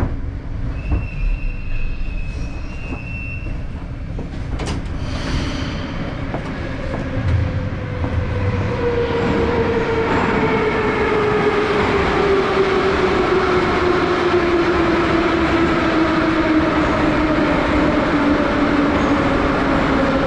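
Moskva-2020 metro train pulling out of a station: the traction drive whines and the wheels rumble as it picks up speed. The whine slides steadily down in pitch, and the sound grows louder about eight seconds in.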